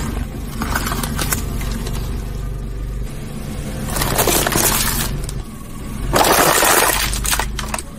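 A car tyre rolling onto things and crushing them: a packet of cream wafers crackles about four seconds in, then a thin plastic tray cracks and crunches loudly a couple of seconds later. A steady low hum runs underneath.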